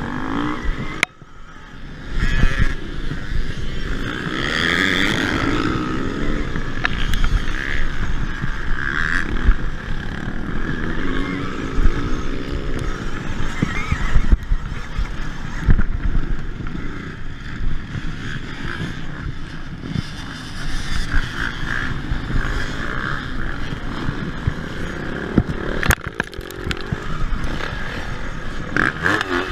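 Off-road motorcycles racing close by, their engines running on and off the throttle, mixed with frequent knocks and rattles of a bike riding over rutted dirt. The sound drops out briefly about a second in.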